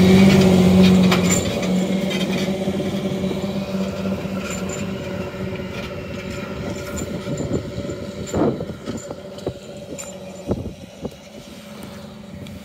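John Deere 8430 tractor's 9.0 L six-cylinder turbo diesel running at full throttle while pulling a subsoiler, a steady hum that is loud at first and fades steadily as the tractor moves away. A few sharp knocks in the second half.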